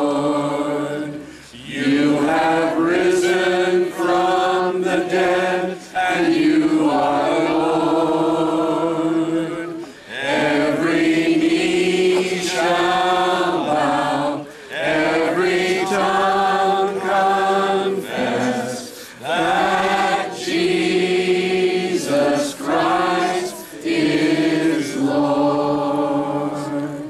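A crowd of people singing a slow worship chorus together, in long held phrases with short breaths between them.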